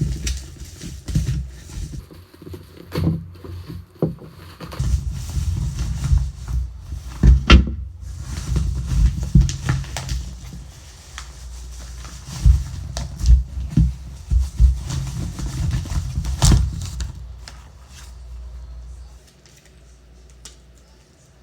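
A parcel being opened by hand close to the microphone: irregular rustling, knocks and thumps of packaging being handled. It dies down to quiet handling near the end.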